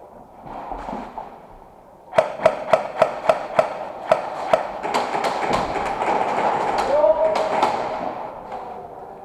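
Airsoft guns firing a quick string of sharp single shots, about three or four a second, starting about two seconds in, over a steady background din.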